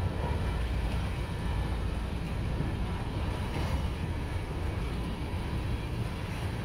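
Empty coal hopper cars rolling past on the rails: a steady low rumble of steel wheels on track.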